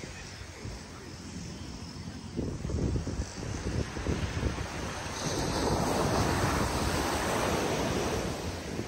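Ocean surf breaking and washing up a sandy beach, swelling louder past the middle as a wave runs up the shore. Gusts of wind buffet the microphone, rumbling through it.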